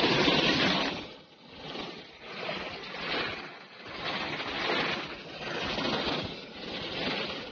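Rushing water of a small stream cascade pouring over rock, swelling louder and softer about every second and a half.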